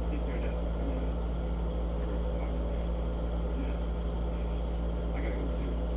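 A steady low hum with a faint background hiss. A few faint short sounds come and go in the middle range.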